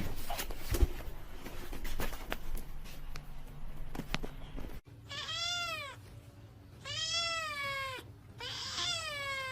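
A domestic cat meowing three times, each a long, drawn-out meow that rises and then falls in pitch, spaced under two seconds apart. Before the meows, a few faint knocks and clicks.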